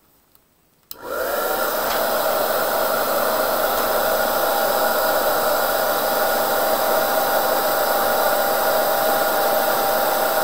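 Hair dryer switched on with a click about a second in, quickly spinning up and then running steadily at one speed, blowing air onto wet watercolour paint to dry it.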